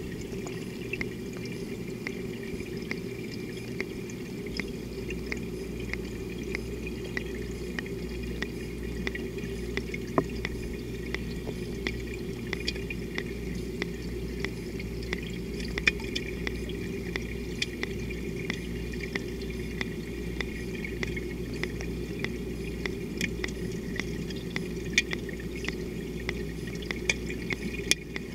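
Water gurgling and trickling over a steady low hum, with many scattered sharp clicks throughout.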